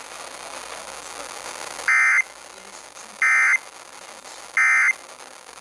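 Emergency Alert System end-of-message tones: three identical short bursts of digital data screech, about 1.3 s apart, marking the end of the alert. A faint broadcast hiss fills the gaps.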